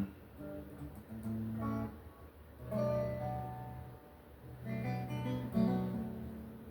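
Acoustic guitar playing, with chords plucked or strummed and left to ring, a new chord every second or so.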